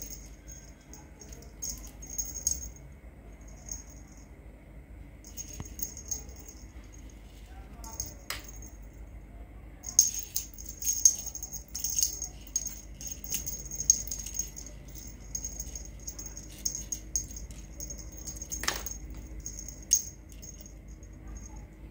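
Small bell in a plastic cat toy ball jingling in short, stop-start bursts as it is batted and rolled. Two sharp knocks stand out, one about eight seconds in and one near the end.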